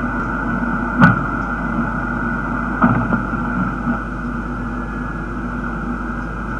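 Steady mechanical drone with a sharp, loud knock about a second in and two more knocks close together near three seconds.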